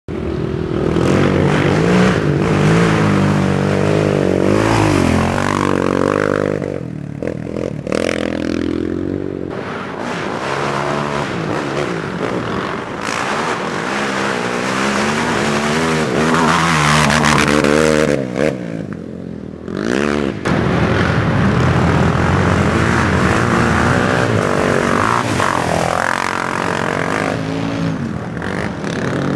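Racing quad (ATV) engines revving hard as they ride past, the pitch repeatedly climbing and dropping with throttle and gear changes. Twice the throttle comes off briefly before the engines pull hard again.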